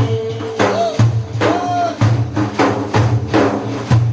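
Instrumental interlude between sung lines of a devotional song: a steady percussion beat, about two strokes a second, each with a low thud. A couple of short gliding melodic notes come in the first two seconds.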